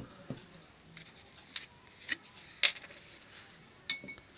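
A spoon clicking and tapping lightly against glassware while honey is spooned out, a few scattered taps with a brief ringing clink near the end.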